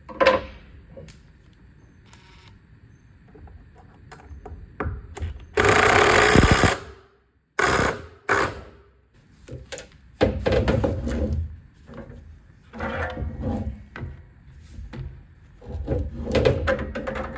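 Hands fitting parts of a Stihl BR600 backpack blower onto its new engine: scattered knocks and clatter of plastic and metal parts. A loud noisy burst about six seconds in lasts roughly a second and a half, followed by two short ones.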